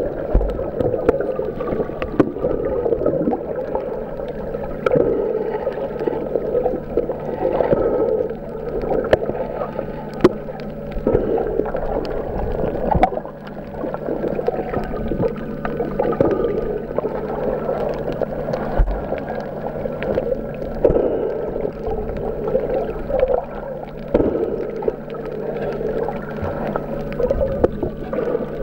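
Muffled underwater sound picked up by a camera underwater: bubbling and water movement over a steady low hum, with scattered clicks and knocks.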